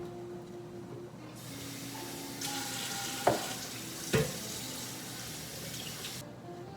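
Kitchen sink tap running for about five seconds, turned on and then off abruptly, with two sharp knocks in the middle.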